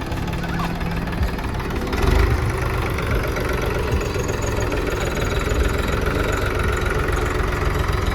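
Tractor engine running steadily, getting somewhat louder about two seconds in.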